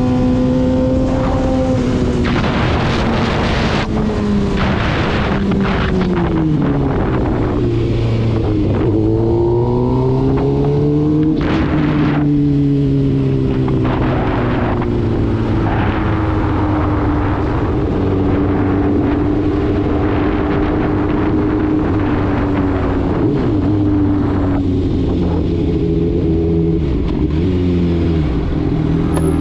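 Kawasaki ZX-6R 636 inline-four engine heard from onboard as the bike slows off the track: revs fall over the first several seconds, rise briefly about ten seconds in, then hold steady at low revs rolling down pit lane, dropping lower near the end as the bike comes to a stop.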